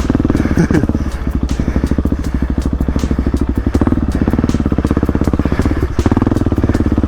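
Supermoto motorcycle engine running at low revs under part throttle as the bike chugs through deep ruts, with short knocks and clatter from the rough ground; the throttle eases briefly about a second in and again near six seconds.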